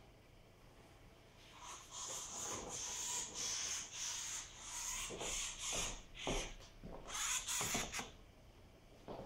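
Scratchy rubbing and scraping in uneven strokes, starting about a second and a half in and stopping about eight seconds in, with a few sharper scrapes near the end.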